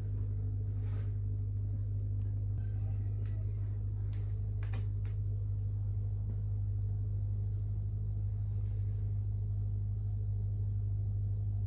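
A steady low hum from an electrical or small machine source, with a few faint clicks about four to five seconds in.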